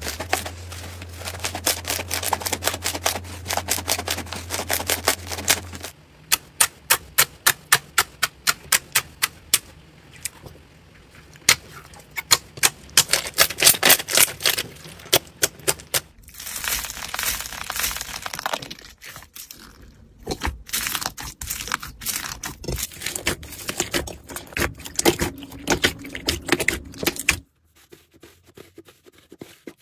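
Hands squeezing, pressing and kneading slime, giving rapid sticky clicks and crackles. In the middle comes a run of loud, evenly spaced pops as air pockets in the clear slime burst under the fingers. A low hum runs under the first several seconds.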